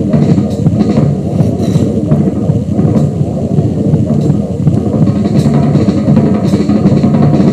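Live experimental electronic music: a dense, steady low-pitched layer with scattered drum hits.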